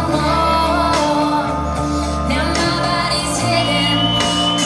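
A song with singing over long held bass notes, with a high note held for about a second near the end.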